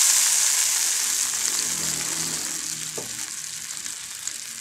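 Tamarind sauce hitting hot garlic oil in a wok, sizzling loudly and steadily dying down as the liquid cools the pan, with chopsticks stirring. A single light knock about three seconds in.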